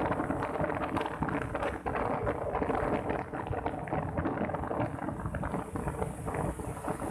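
Wind buffeting the microphone on a moving motorcycle, a constant rumbling rush over a faint steady engine drone and road noise.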